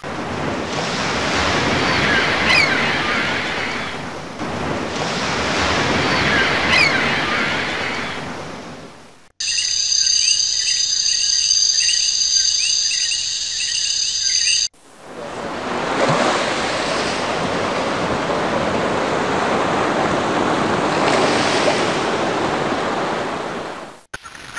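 Sound-effect track of sea waves washing in and ebbing, with sharp edits: surf for about nine seconds, then about five seconds of steady high tones and quick repeated chirps, then another long wave swelling and fading.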